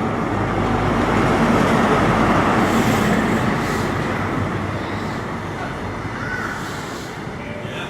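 A train rolling into a station. A heavy rumble swells to its loudest about two seconds in, then slowly fades as the train slows, with a brief high squeal a little after six seconds.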